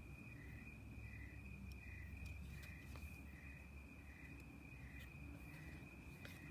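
Crickets calling faintly: a steady high trill, with a softer chirp repeating about three times every two seconds.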